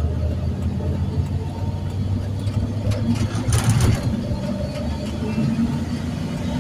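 Vehicle engine idling steadily, with another vehicle swishing past about three and a half seconds in.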